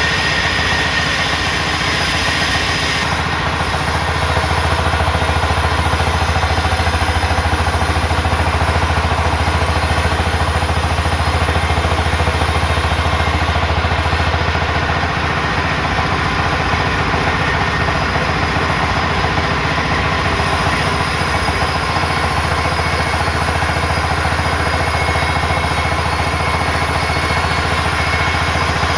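Sawmill machinery running steadily: a continuous loud mechanical drone with a deep hum.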